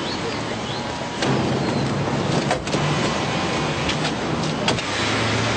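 A car's engine running with street noise around it, picking up about a second in. A few sharp knocks come from the car door being handled and shut, a pair near the middle and one near the end.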